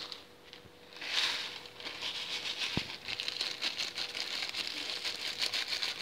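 Plastic Mie Sedaap Goreng instant-noodle packet crinkling as crushed dry noodles are shaken out of it and rattle into a plastic bowl. It makes a dense run of small clicks and rustles starting about a second in, with one sharp knock partway through.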